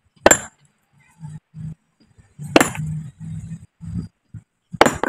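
Three strikes of a steel hammer on a large stone block, each a sharp crack with a short metallic ring, about two seconds apart: rock being split by hand.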